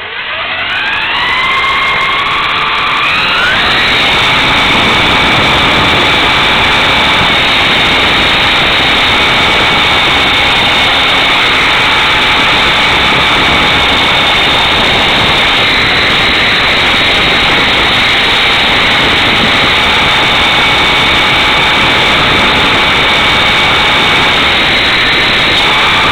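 Electric motor of a radio-controlled CH-53 model helicopter spooling up for takeoff, its whine rising in pitch over about four seconds, then holding a steady high whine in flight. A loud rush of air runs under it, heard from the camera mounted beneath the helicopter.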